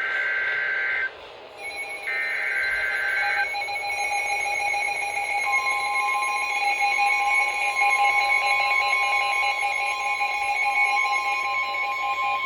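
Emergency Alert System broadcast signal: two short, harsh digital data bursts of the SAME header, each about a second long, then a steady electronic alert tone. A second, higher tone joins about five seconds in, and the tone holds on as the attention signal before the spoken warning.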